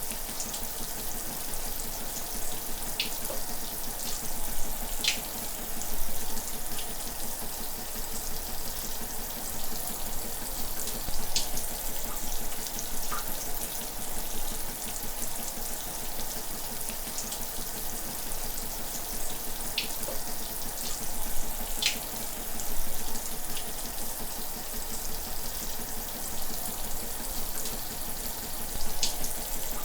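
Shower running: a steady hiss of falling water spray, with a few brief sharper splashes now and then.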